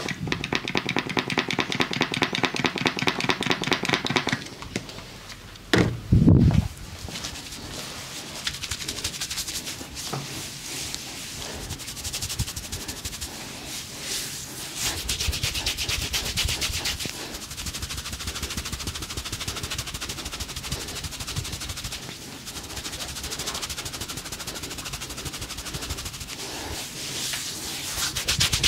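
Rapid percussion massage: a fast, even patter of hand strikes on a person's body, louder for the first four seconds and softer after. One loud thump comes about six seconds in.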